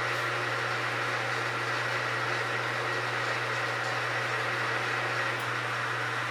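Metal lathe taking a facing cut across a half-inch steel plate, running steadily with an even hum.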